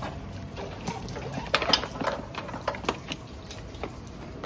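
Hands working on a truck's wiring harness and plastic connectors: irregular light clicks, knocks and rattles, busiest about a second and a half in.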